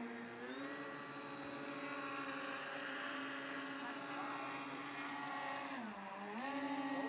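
Motors and propellers of a large radio-controlled model aircraft running at a steady, buzzing high throttle in flight. About six seconds in the pitch drops briefly and rises again as the throttle is eased off and opened back up.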